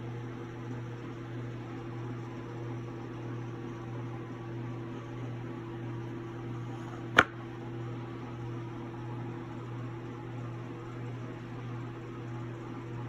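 Steady electrical or fan-like hum with one sharp click a little past halfway through.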